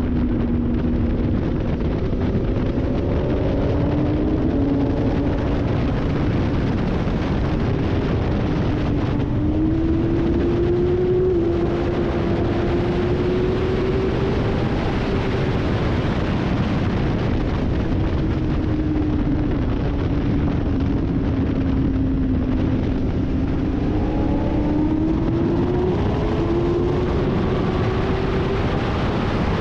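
Sport motorcycle engine at racing speed under heavy wind rush on the microphone; the engine note climbs through the gears, drops away for a stretch around the middle as the bike slows for a corner, then climbs again near the end.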